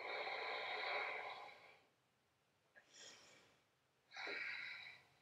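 A woman's audible breaths, with no voice in them: a long breath of about two seconds at the start, a short faint one around three seconds in, and another of about a second near the end.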